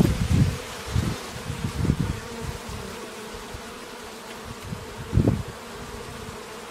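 Honeybees buzzing in flight around hive entrances, a steady drone. Low buffets of wind on the microphone cut through it, several in the first two seconds and once more about five seconds in.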